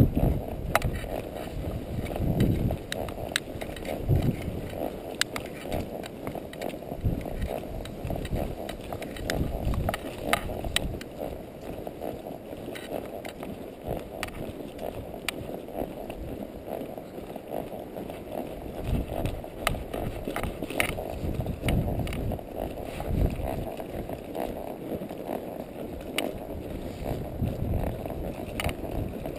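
Wind rumbling on the microphone, with irregular clicks and knocks from a horse's hoofbeats and tack as it moves along the trail.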